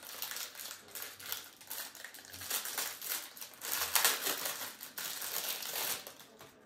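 Plastic packaging being handled and opened by hand: a dense crackling that is loudest about four seconds in and dies away near the end.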